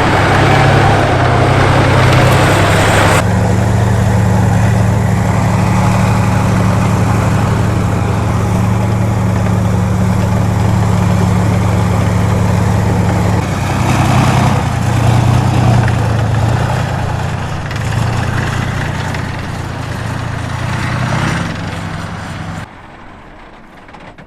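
T-72 tank's V12 diesel engine running with a steady, low, even drone. The sound changes abruptly about three seconds in and again a couple of times later, shifting slightly in pitch, then drops away sharply near the end.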